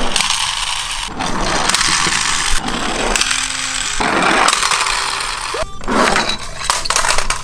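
Die-cast Disney Cars toy cars rolling down a plywood ramp one after another, a rough rattling rumble on the wood for about a second each with short breaks between, and a few sharp clacks near the end.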